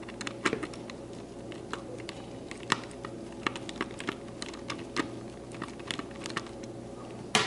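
Screwdriver turning a screw out of the plastic standoff on a ClineFinder probe housing: a run of light, irregular clicks and ticks, with one sharper click near the end.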